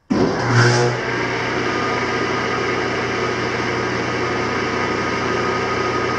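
Laguna 25-inch planer with a ShearTec II spiral cutterhead switched on and running with no load. It starts abruptly, surges louder for about the first second as it spins up, then settles into a steady hum.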